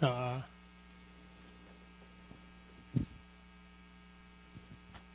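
Steady electrical mains hum carried by the microphone and PA system. A short spoken sound comes at the very start, and a single low thump about three seconds in.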